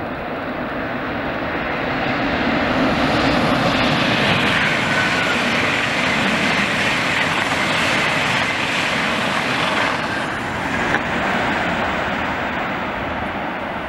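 VR Sm3 Pendolino electric train passing at speed. Its rushing wheel and air noise swells over the first few seconds, holds loud while the cars go by, and eases off as it pulls away.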